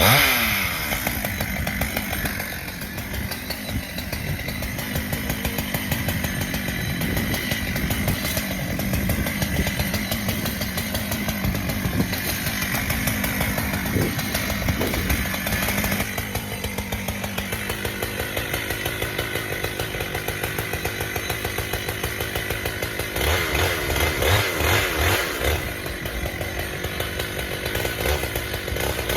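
Husqvarna chainsaw running and cutting through saplings and brush, its engine speed rising and falling with each cut; the pitch drops quickly right at the start.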